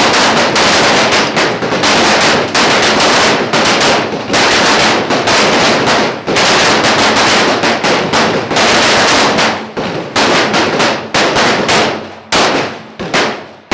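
Pistol fire from a whole line of shooters, many shots overlapping in a dense, rapid string that thins to scattered single shots in the last few seconds.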